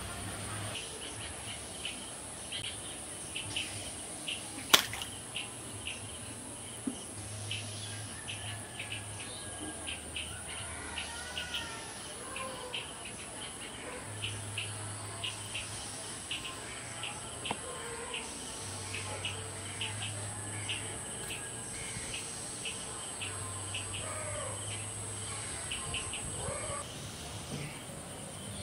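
Field ambience of insects and birds: a steady high insect buzz with many short chirps and a few gliding bird calls. A single sharp click comes about five seconds in.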